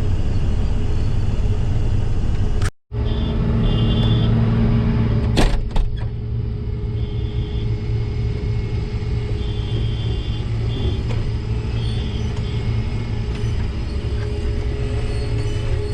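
Farm harvest machinery running steadily, a loud low engine rumble, with faint short high beeps now and then. The sound drops out briefly about three seconds in, and there are a couple of clicks near six seconds.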